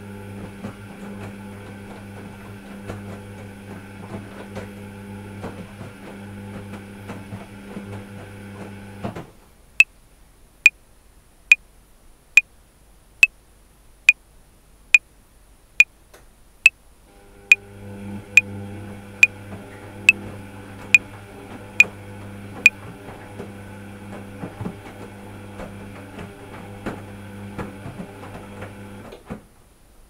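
Top-loading washing machine running a cotton 60° wash, its motor humming steadily. The hum stops about nine seconds in, starts again about eight seconds later, and stops near the end. Metronome clicking at 70 beats a minute, sixteen clicks (four bars of 4/4) from about ten seconds in.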